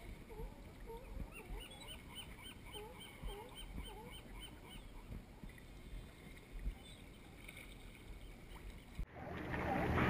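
Gulls calling in a quick repeated series of short notes over faint lapping water. About nine seconds in, the sound changes abruptly to much louder rushing wind and water noise.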